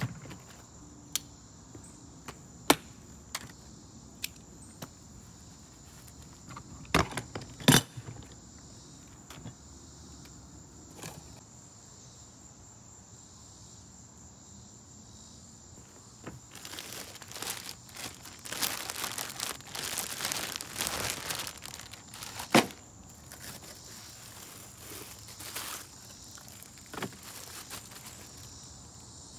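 Plastic toolbox being unpacked: sharp clicks and knocks of its latches and lid, loudest about seven to eight seconds in, then a stretch of crinkling plastic bags and paper packaging from about seventeen to twenty-two seconds in. A steady high insect drone runs underneath.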